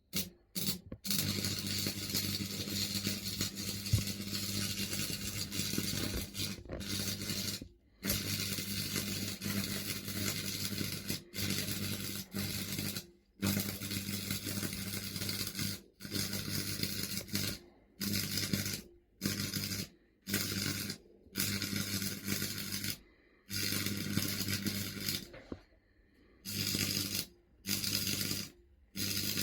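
Stick (MMA) welding arc on a 2 mm electrode from an old transformer welder: a steady crackling hiss with a deep mains hum under it, which cuts out suddenly about a dozen times and strikes up again each time. The breaks are the old transformer cutting out, which the welder blames on it not liking the job.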